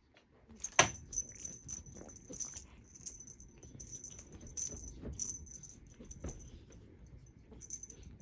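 A small bell jingling in short shakes, with light clicks and knocks among them. The loudest moment is a sharp knock about a second in, and the jingling thins out near the end.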